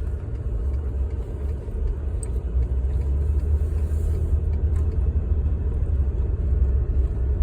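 Steady low rumble of a vehicle driving slowly, with a few faint clicks.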